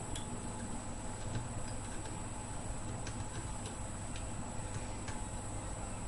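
Faint, irregularly spaced small clicks and taps over a steady low electrical hum.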